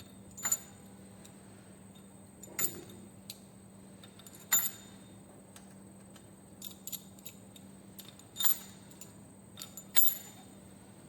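Sharp metallic clinks of steel engine parts and tools being handled and set down during cylinder head reassembly, about six, spaced irregularly, each with a short ring. A faint steady hum runs underneath.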